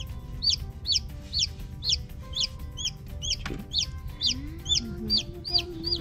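Newly hatched chicks peeping: a steady string of short, high, falling peeps, about two a second, with two chicks sometimes calling at once.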